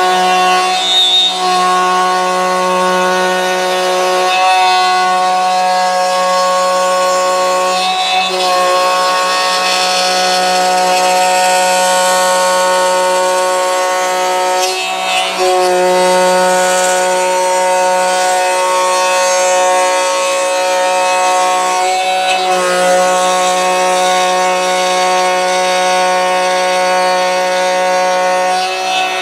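Table-mounted router running steadily while a wooden board is turned on a pivot pin over the bit, cutting a circle for a router template. The motor holds one pitch, with brief dips every few seconds.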